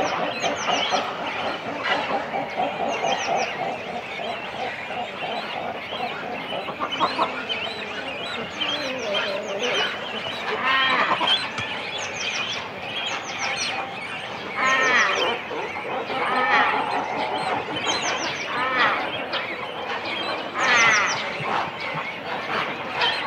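Cormorant nesting colony at close range: adults and chicks calling on the nests in a dense, unbroken chorus, with other birds calling behind. Quick runs of three or four short high chirps recur every second or two, and louder calls stand out at about 11, 15 and 21 seconds.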